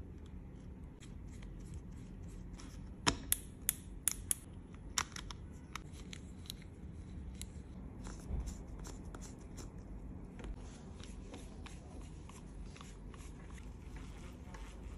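Light metallic clicks and ticks of a precision screwdriver and small parts being handled while a baitcasting fishing reel's handle is refitted, with a cluster of sharper clicks about three to five seconds in.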